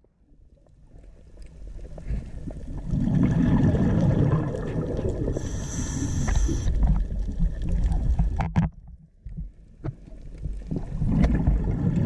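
Underwater recording of a scuba diver's exhaled bubbles: an irregular low bubbling rumble with scattered clicks, dipping briefly twice near the end, and a short high hiss about halfway through.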